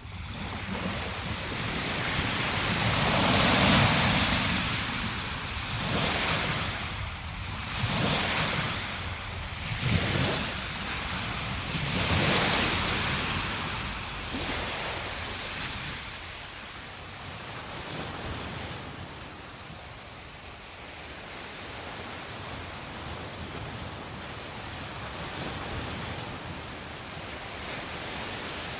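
Small waves breaking and washing up onto a sandy beach. Over the first half there is a run of surges about two seconds apart, after which it settles to a softer, steady wash.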